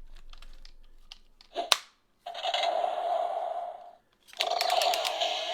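Plastic clicks and a sharp snap as the Red Ranger key is slotted into a Dino Fury Morpher toy, then the morpher plays electronic sound effects through its small speaker in two stretches, with a short break between them.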